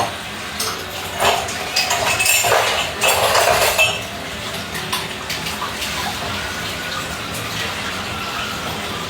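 Water running and splashing for about three seconds, with dishes or glassware clinking, then dying down to a low steady hum with a few light clinks.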